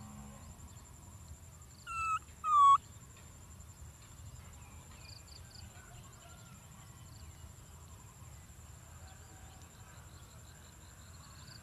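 Baby macaque giving two short, high squeaky calls about two seconds in, each dipping slightly in pitch and then flicking up at the end.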